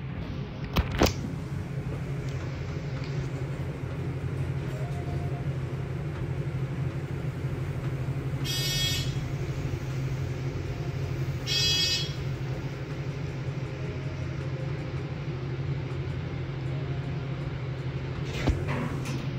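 Elevator car running with a steady low hum, with two short high beeps about three seconds apart midway through the ride and a few sharp clicks near the start and near the end.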